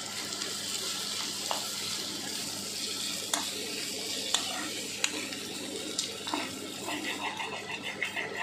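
Sliced okra sizzling as it fries in a pan, stirred steadily with a steel spatula that scrapes and clicks against the pan about five times.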